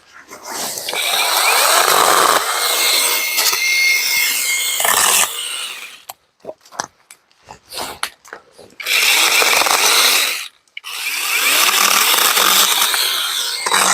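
Imoum Live battery-powered mini chainsaw cutting through brush in three bursts: one of about four seconds, then two shorter ones in the second half. Scattered short clicks and snaps come between the cuts.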